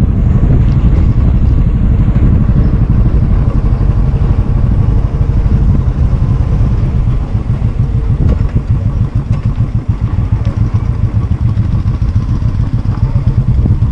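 Royal Enfield Thunderbird's single-cylinder engine running under way, heard from the bike itself. Its beat is easier to pick out in the second half.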